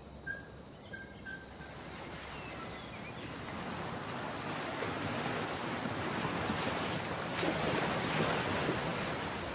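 Steady rushing of sea surf and wind, building up over the first few seconds. A few short, faint high chirps sound near the start.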